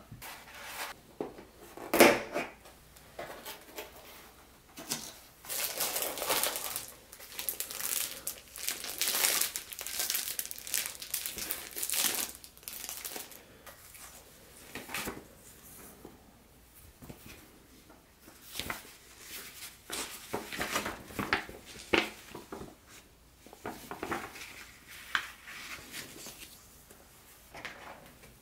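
Packaging being handled: a styrofoam insert, cardboard box, paper instruction sheet and plastic toy train track pieces, making irregular rustling and crinkling with a sharp knock about two seconds in.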